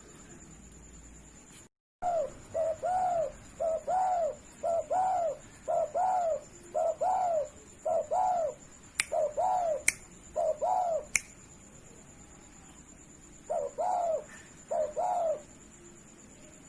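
Spotted dove (derkuku) cooing: a long run of repeated arching coo notes about two seconds in, a pause, then a few more near the end. Three sharp clicks fall in the middle of the run.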